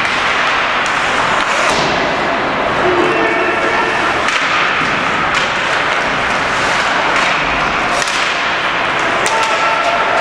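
Ice hockey play in an arena heard from the stands: a steady wash of skates on the ice and crowd noise, with several sharp cracks of sticks on the puck and the puck against the boards.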